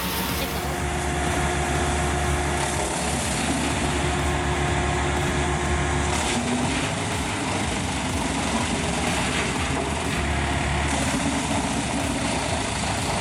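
Wood chipper running steadily with its engine under load as a log is fed in and chipped.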